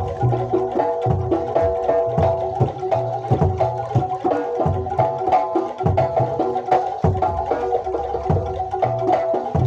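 Jaranan Dor ensemble playing traditional East Javanese music. A repeating pitched melody runs over steady drum strokes, with deep bass drum notes recurring every second or two.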